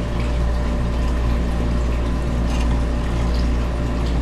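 Steady hum and water noise of aquarium pumps and filters running, with a few faint taps.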